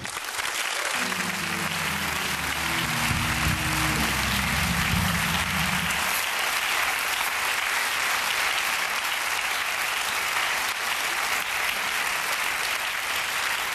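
Studio audience applauding steadily and loudly. For the first six seconds or so, a short musical sting of low held chords plays under the clapping, then stops.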